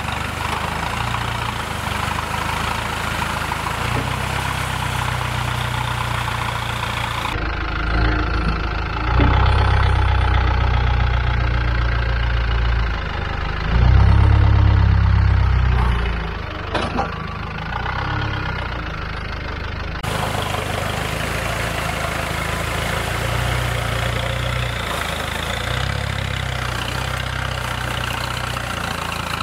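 Land Rover Defender 110's engine working off-road, its revs rising and falling under load, with the two loudest surges about a third and half of the way through.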